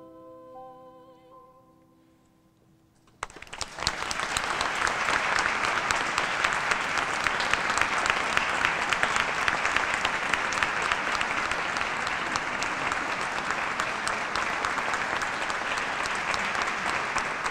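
The last held notes of a choir with a female soloist die away, and after a short hush an audience breaks into steady applause about three seconds in.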